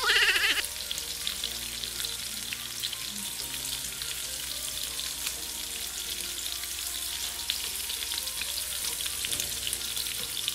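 Peeled shrimp frying in hot canola oil in a nonstick pan: a steady sizzle with fine crackling as the prawns are turned over with tongs.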